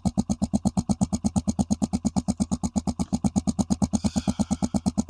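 Motorcycle engine idling with an even, steady beat of about ten pulses a second.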